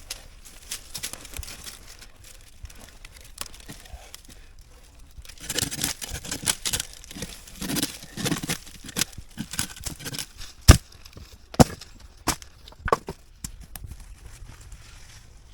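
Crinkling and rustling from something being handled, in a busy run of a few seconds partway in, followed by four sharp clicks about a second apart.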